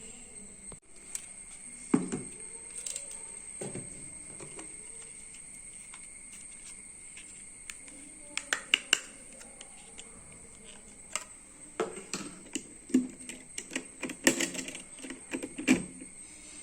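Irregular clicks and light knocks of computer parts being handled: a few taps early on, then quicker clusters of clicks in the second half.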